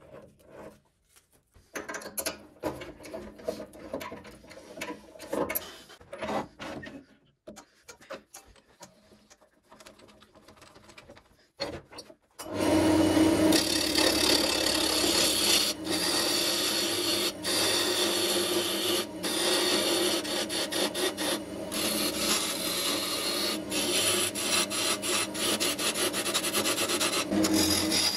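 Scattered faint handling knocks while the lathe is quiet, then about halfway through a wood lathe comes in suddenly, running steadily as a hand-held turning tool cuts along a spinning wood blank.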